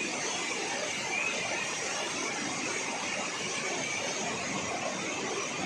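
Steady rush of water, an even unbroken noise with no rhythm or pitch: heavy monsoon rain and floodwater.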